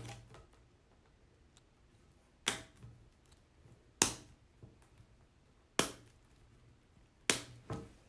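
Plastic butterfly locks of a partridge cage's roof panel snapping into place: four sharp snaps about a second and a half apart, with a fainter click just after the last.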